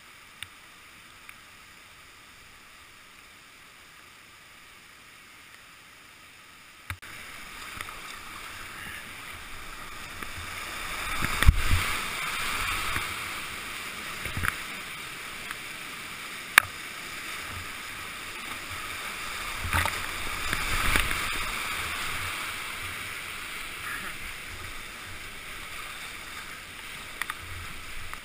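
Whitewater rushing around a kayak running river rapids. A low steady flow turns suddenly louder about seven seconds in and swells twice more, with a few sharp knocks and splashes against the boat.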